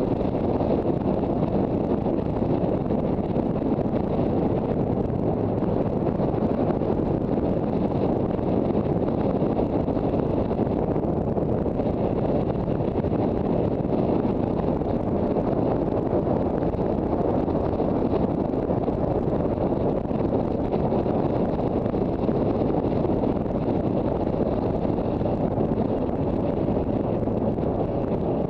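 Steady wind rushing over the microphone of a Honda CB400 Super Bol d'Or motorcycle ridden at an even speed, with the bike's inline-four engine running beneath it.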